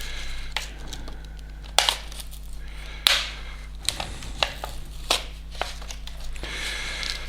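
Pocket knife cutting open stiff retail packaging: crinkling with irregular sharp cracks and snaps as the packaging gives, the loudest about two and three seconds in.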